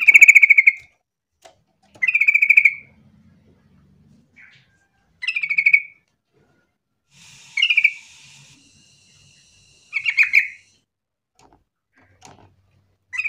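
Yellow-vented bulbul singing: a short phrase of quick notes repeated about every two and a half seconds, five times, with a brief hiss about halfway through.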